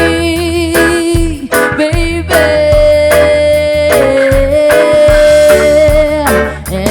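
Live reggae band playing, with a lead vocalist singing long held notes over bass, drums and off-beat guitar chops.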